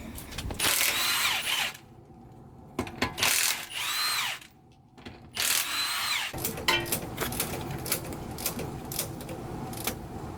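Power tool, of the drill or impact-driver kind, run in three bursts of about a second each, its whine rising then falling each time. After them comes a stretch of lighter clicking and clatter.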